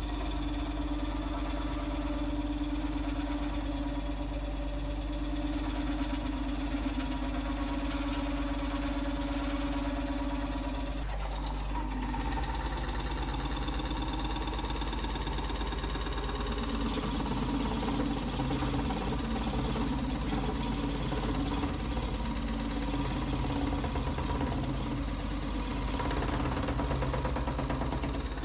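Wood lathe running with a birch bowl blank spinning while a turning tool and then a bowl-coring tool cut into the wood. A steady motor hum and whine lie under the cut, and the sound of the cut changes partway through.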